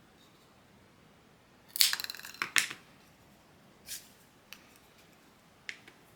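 Craft supplies being handled on a work table: a short burst of rustling and clicks about two seconds in, then a few single light taps.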